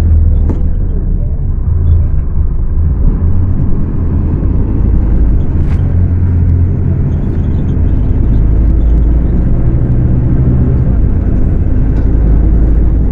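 Scania K250UB bus's rear-mounted diesel engine running steadily under way, a loud, continuous low drone.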